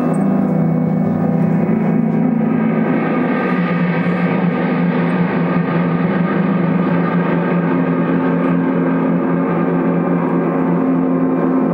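Ambient music: dense, sustained drones from looped electric guitar, layered into a steady wash, with the low note shifting a few times.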